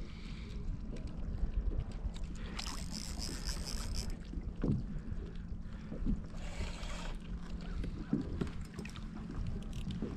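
Water lapping and sloshing around a kayak's hull, with a steady low wind rumble on the microphone. Two brief hissing washes of water come about two and a half and six seconds in, and a few soft knocks sound against the hull.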